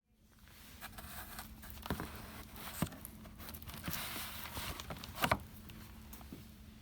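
Handling noise: light rustling and a few sharp knocks, the loudest about five seconds in, over a low steady hum.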